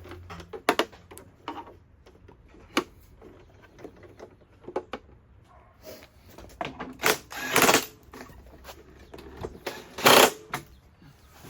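Scattered clicks, knocks and clattering of hand tools and metal mower parts being handled and fitted, with two louder, longer bursts of noise about seven and ten seconds in.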